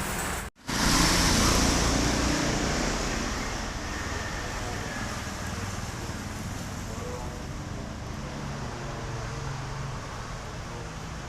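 Steady road traffic noise, with a brief cut about half a second in followed by a louder hiss that fades over the next few seconds.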